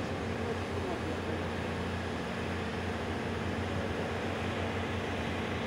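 Steady low engine hum from heavy machinery and traffic at a roadworks site, with a faint murmur of distant voices.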